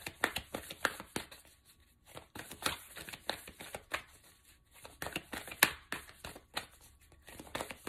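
A deck of oracle cards being shuffled by hand: a quick, irregular run of soft card slaps and clicks, with a couple of short pauses and one sharper snap a little past halfway.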